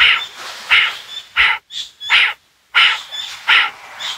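Kapalbhati breathing: short, forceful exhalations pushed out through the nose in an even rhythm, about one and a half a second, with the inhalations passive between them.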